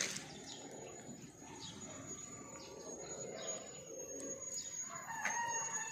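A sharp click right at the start, then a rooster crowing once near the end, over a steady high-pitched tone.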